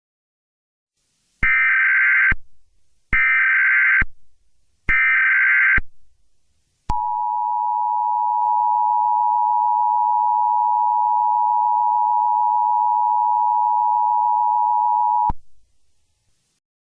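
Emergency Alert System alert opening: three short bursts of SAME header data, a buzzy electronic screech of about a second each with short gaps between them. Then comes the steady two-tone EAS attention signal, held for about eight seconds before it cuts off abruptly. Together they mark the start of an emergency broadcast.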